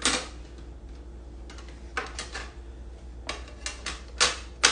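Hard parts of a Bartesian cocktail maker being handled and fitted into place: a string of sharp clicks and knocks, with the loudest knocks right at the start and near the end.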